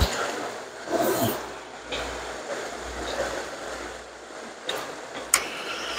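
Steady rush of whitewater pouring over rocks, with a few sharp clicks and knocks from close handling, two of them near the end.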